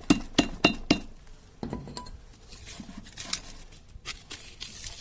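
Iron pestle pounding burnt phone circuit boards in a metal mortar, with sharp clinking knocks: four quick strikes in the first second, then a few scattered clinks. The brittle burnt boards crack apart under the blows rather than grinding down.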